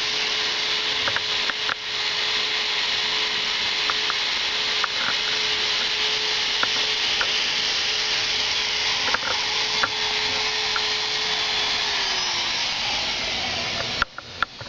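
Hot air plastic welding gun blowing steadily: a constant hiss of hot air over a steady hum from its blower, with light scattered clicks. Near the end the hum sags in pitch, and the sound drops off abruptly with a few clicks.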